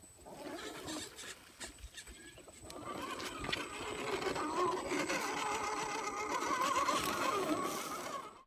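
Brushed electric motor and gears of an MN999 1/10 RC truck whining under throttle, the pitch wavering up and down as the throttle changes; it starts about three seconds in after a few scattered clicks and cuts off suddenly near the end.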